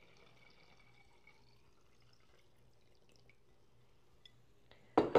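The last of the water trickling and dripping from a glass pitcher into a quart glass jar, fading out within the first second and a half. Near the end, two sharp knocks close together, as something is set down on the countertop.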